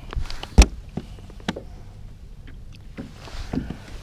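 Scattered knocks and clicks from handling a chain pickerel and gear on a plastic kayak, with one loud thump about half a second in and a second knock about a second and a half in.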